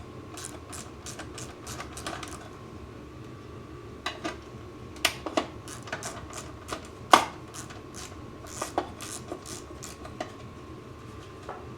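Hand tools clicking and knocking on a lawn mower's metal cover and fasteners: a quick run of light clicks for about two seconds, then scattered sharper knocks and clinks.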